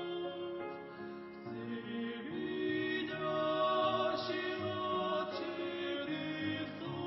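A choir singing a slow hymn, holding sustained chords that change about once a second.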